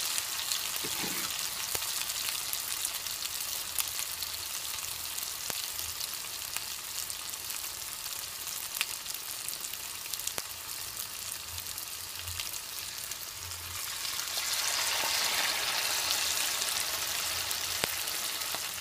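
Corned beef fritters frying in hot vegetable oil in a pot: a steady sizzle with scattered pops and crackles, growing louder about fourteen seconds in.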